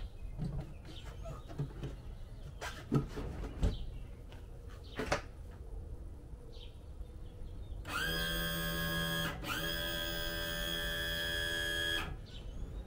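Mercury 60 four-stroke outboard's power trim and tilt pump running for about four seconds, with a brief break after the first second, tilting the motor up for trailering. The pump gives a steady electric-motor whine. Before it come a few knocks and clicks from the cowling being fitted.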